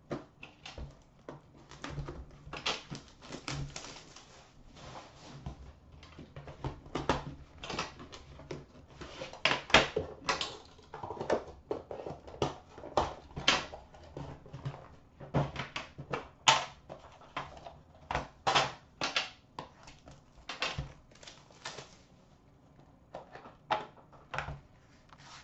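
Upper Deck The Cup hockey card tin and its packaging being handled and opened by hand: an irregular run of clicks, taps and scrapes of metal and cardboard, denser through the middle and thinning near the end.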